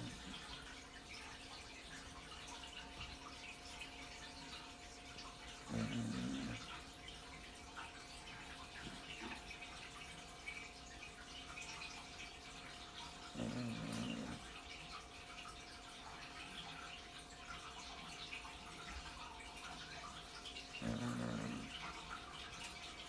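Corgi snoring in its sleep: three short, low snores spaced about seven to eight seconds apart, over a steady background hiss and a faint steady hum.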